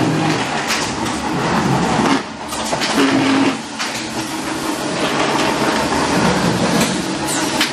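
Magellan 55" x 120" boxmaker running steadily, with a clattering run of irregular knocks and clicks as its feed rollers and conveyor carry corrugated cardboard sheets through the machine. A short hum rises briefly about three seconds in.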